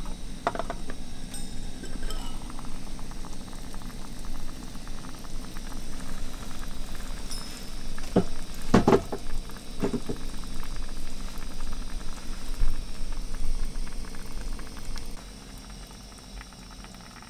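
Water boiling, bubbling and hissing steadily, with a few brief louder sounds about halfway through; the bubbling drops away sharply a couple of seconds before the end.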